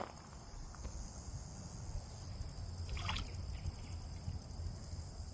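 Light splashing at a pond surface as bluegill are fed, with one brief sharper splash about three seconds in, over a low steady rumble.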